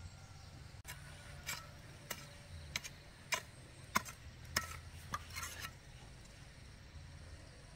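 A run of about nine irregular scrapes and knocks over a few seconds, some short and sharp and a few drawn out, over a low steady rumble.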